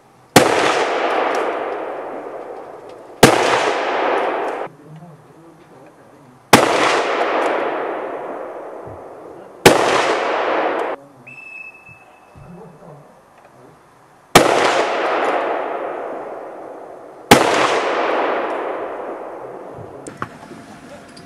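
Six hunting-rifle shots fired in three pairs, the shots in each pair about three seconds apart. Each is a sharp crack followed by a long echo that fades over two to three seconds.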